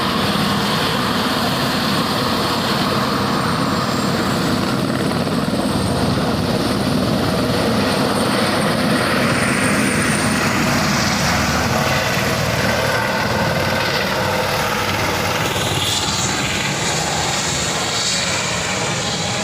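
Helicopter rotor and turbine running close by, loud and steady, with a fast low chop of the blades and a faint high whine that rises slightly a few seconds in; it stops sharply at the end.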